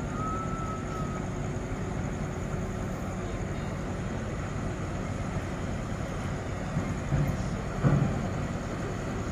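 Boat engine running with a steady low rumble and hum, with a couple of brief knocks about seven and eight seconds in.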